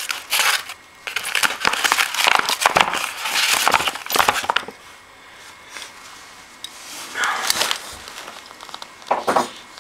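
Cardboard shipping box being pulled open by hand: flaps and packing tape crackling and crumpling in dense bursts for the first few seconds, then a couple of shorter rustles.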